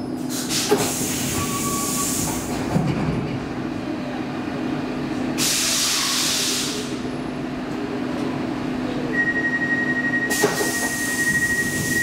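Stockholm Metro C14 train standing at a platform: a steady low hum from the train's equipment, with air hissing out in three bursts about five seconds apart. A steady high tone starts about nine seconds in.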